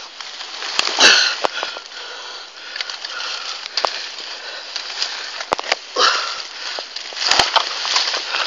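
Mountain bike rattling down a rough forest trail, heard from a camera fixed to the frame: steady rushing and scraping noise with sharp knocks a few times as the bike jolts over the ground.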